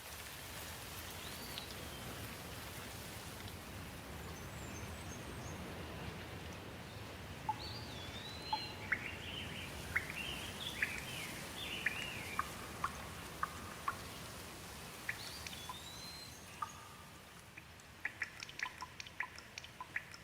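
Steady rain with birds calling over it: chirps and short whistled notes come and go through the middle. Near the end, a quick run of sharp ticks, like drips, sounds over the rain.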